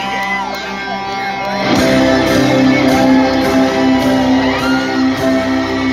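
Live band music, loud, settling into a held chord from about two seconds in, with audience members whooping and shouting over it.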